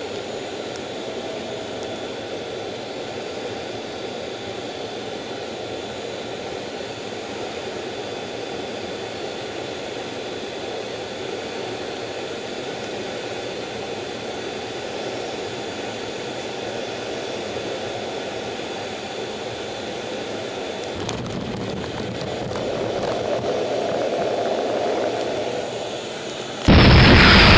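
Jet engine noise heard at the cockpit of a carrier jet: a steady rush with a thin high whine, a deeper rumble swelling in over the last few seconds. Near the end a much louder jet blast cuts in suddenly.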